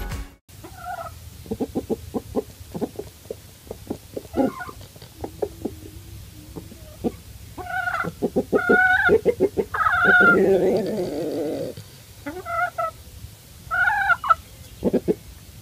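A backyard flock of hens and a rooster clucking: runs of quick, low clucks with louder, drawn-out hen calls scattered through, bunched in the middle and near the end.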